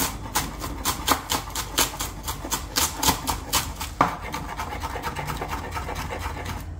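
Kitchen knife chopping fresh coriander and mint on a wooden cutting board, the blade knocking the board about four times a second. About four seconds in, it goes over to quicker, lighter strokes as the herbs are chopped fine.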